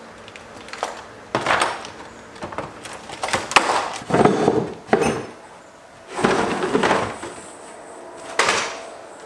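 Hand tools clattering and knocking together as hands rummage through plastic milk crates of tools, in irregular bursts of rattling with short pauses between.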